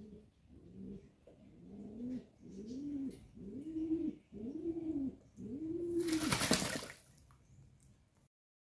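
Domestic racing pigeon cooing: a run of about six low, rising-and-falling coos that grow louder one after another. A short burst of noise comes about six seconds in, and the sound cuts off suddenly near the end.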